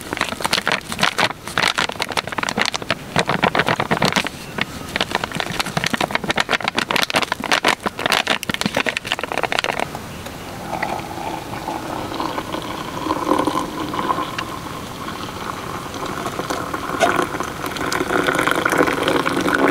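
A sachet crinkling and rattling as its contents are shaken into a mug for about ten seconds. Then tea is poured from a small kettle into the mug: a steady stream whose ringing tone climbs toward the end as the mug fills.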